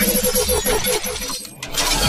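Intro-animation sound effects: a glassy shattering crash whose ringing echoes repeat and fade, then a deep low hit near the end.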